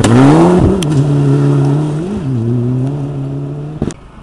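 Rally car engine at high revs, its pitch dipping and climbing back twice as the driver lifts and changes gear, then held steady before the sound cuts off abruptly near the end.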